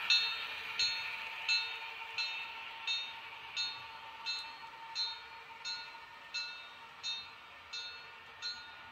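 Märklin H0 model of the DB class 491 'Glass Train' railcar running along the layout track: a faint steady hum with a regular, ringing metallic click about every 0.7 seconds. The sound fades steadily as the model moves away.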